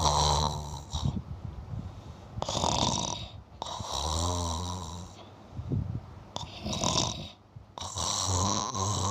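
Sleeping cat snoring: a buzzing, hissing snore on each breath, five in all, with short pauses between.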